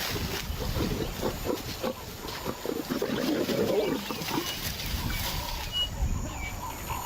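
Lions growling and grunting in a run of short, rough, low grunts, heaviest around the middle.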